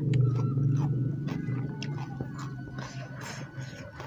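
Close-miked wet, sticky clicks and smacks of fingers squeezing and mixing rice with sambal on a banana leaf, over a low steady hum.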